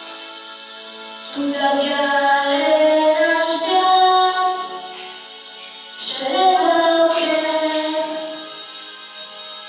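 A girl singing into a microphone over a held instrumental accompaniment, in two phrases: the first starts about a second in, and the second about six seconds in.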